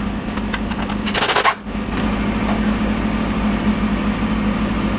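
A pneumatic impact wrench fires in a short burst about a second in as the bolts of the bumper reinforcement beam come out. Under it runs a steady machine hum with a fast low pulse.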